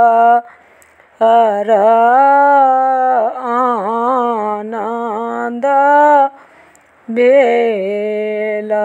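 A woman singing a Maithili upanayan geet (sacred-thread ceremony folk song) unaccompanied, in long held, wavering phrases, with short breaks for breath about a second in and again around six seconds.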